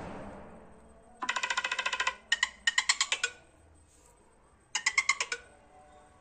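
Nothing Phone ringtones playing: three short bursts of rapid, pitched electronic beeps, each about a second long, after a soft whooshing swell that fades out in the first second.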